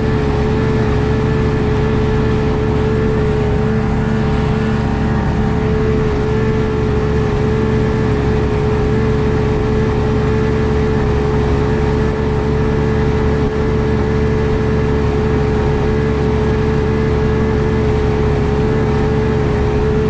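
1999 Evinrude FICHT 150 V6 two-stroke outboard running under way at a steady speed: a constant drone with one strong steady tone.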